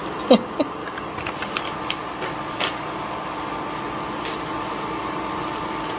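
Steady hum of a kitchen appliance's fan, with a low and a higher steady tone, and a few light clicks of a slotted metal spoon stirring frozen fried rice in a pan.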